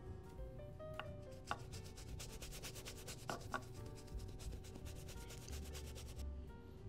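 Paintbrush scrubbing against a canvas in quick, rapid back-and-forth strokes, starting about a second and a half in and stopping near the end, with soft background music underneath.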